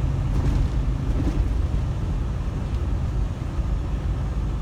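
Steady low drone of a semi truck's engine and tyres on the road, heard inside the cab while driving.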